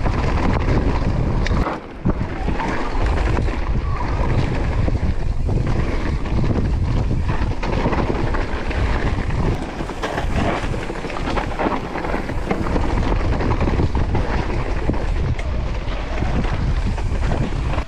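Heavy wind buffeting on the camera microphone during a fast mountain-bike descent, with rattling and tyre noise from the rough trail; it dips briefly about two seconds in.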